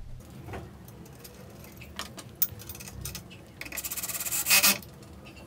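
Light clicks and knocks of metal parts being handled, then, past the middle, a cordless drill briefly driving a stepper-motor mounting bolt: a quick run of rapid clicks ending in a short loud burst.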